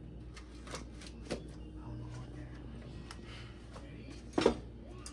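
Metal gas-stove burner grates being handled and set back down on the stovetop: a couple of light knocks, then one louder clank about four and a half seconds in.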